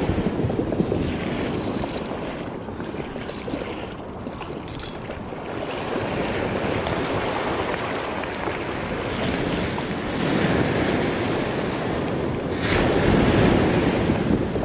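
Ocean surf washing in and out at the waterline, with wind buffeting the microphone; the surf swells louder about ten seconds in and again near the end.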